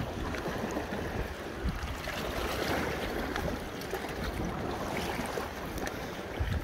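Sea water washing and lapping against the rocks of a stone breakwater as a steady hiss, with some wind rumbling on the microphone.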